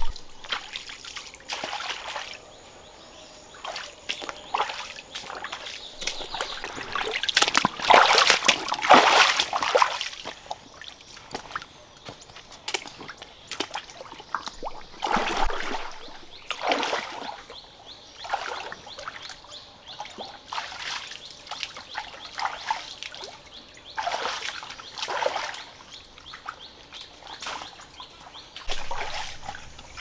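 Rain boots wading through a shallow, rocky stream: irregular splashes and sloshing water over the stream's steady trickle, with the loudest splashing about eight to ten seconds in.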